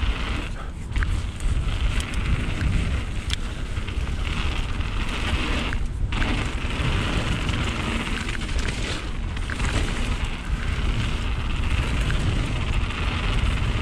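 Mountain bike riding down a wet trail: a steady rush of wind over the microphone with a deep rumble of tyres and bike rattle over the rough ground.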